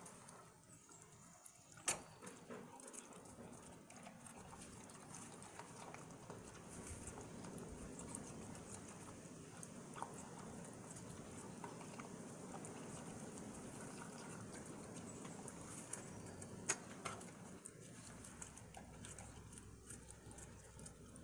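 Turkeys pecking at a half watermelon, their beaks making faint, scattered ticks and wet pecks on the flesh, with two sharper clicks, one about two seconds in and one near the end.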